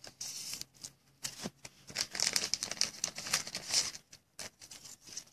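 Trading cards being handled by hand: a dry rustling and crinkling, with irregular small taps and clicks.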